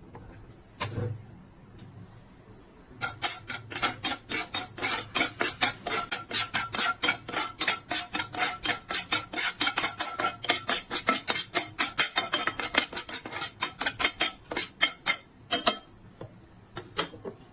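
Popcorn kernels popping: a single pop about a second in, then from about three seconds a dense run of rapid pops, several a second, that thins to a few scattered pops near the end.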